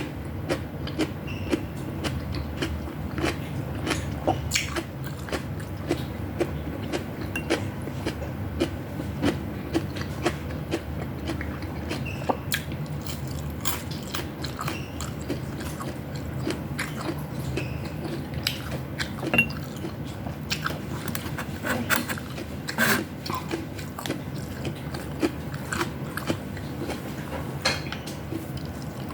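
A person chewing and biting food close to the microphone: irregular sharp clicks and smacks over a steady low hum.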